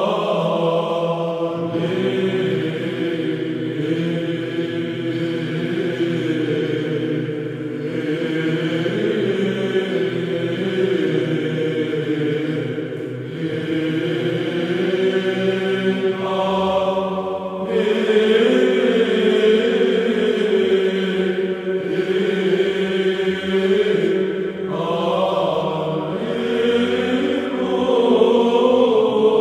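Background music of slow vocal chant, with long-held notes over a sustained low tone; the notes change about two seconds in, again around sixteen seconds, and near twenty-five seconds.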